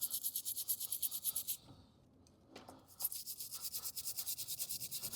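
Small brush scrubbing rapidly inside a 42-pin electrical connector to clean its pins, in fast even strokes of about nine a second. It comes in two runs with a pause of about a second and a half between them.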